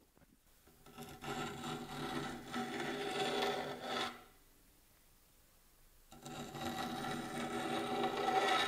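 Hand file drawn across the steel tubing of a welded machine table, with the clip-on microphone held right against it: two long rasping strokes of about three seconds each, with a steady ringing pitch in the scrape.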